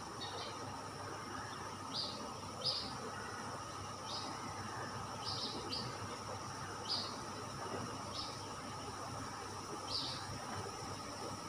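A small bird chirping over and over in short high chirps, about one a second at irregular intervals, over a steady background hiss.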